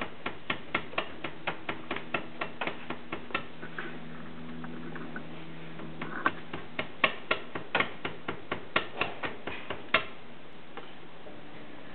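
Sharp chisel trimming an epoxied wooden plug flush with a wooden aircraft propeller blade: a run of short sharp clicks, about four a second, thinning out about four seconds in, resuming around six seconds and stopping about ten seconds in.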